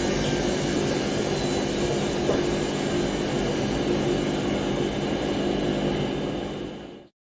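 Washing machine on its spin cycle, the drum spinning with a steady hum made of several held tones over a noisy whir. It fades out quickly and stops near the end.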